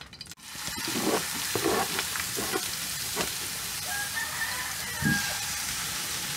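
Chopped onion sizzling in hot oil in a frying pan, a steady hiss that starts about half a second in, with scattered sharp crackles as it fries and is stirred with a metal spoon.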